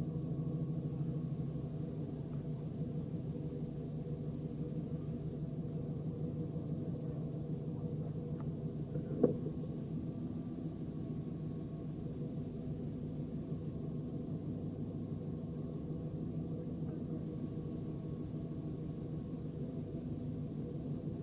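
Subaru rally car's engine idling steadily, heard from inside the cabin, with one sharp click about nine seconds in.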